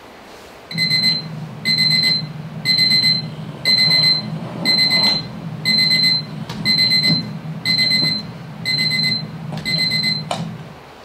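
Electronic alarm clock beeping: ten bursts of rapid, high-pitched beeps, about one burst a second, over a low drone, cutting off near the end with a click.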